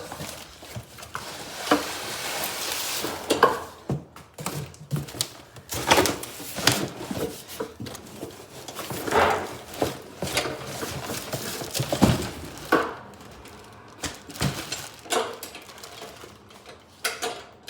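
Irregular knocks, clunks and rattles of lawnmower parts and packaging being handled and pulled out of the box, with a stretch of rustling a couple of seconds in.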